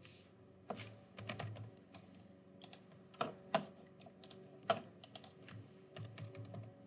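Computer keyboard and mouse clicks: irregular, separate keystrokes and clicks, a few small runs and some single louder clicks.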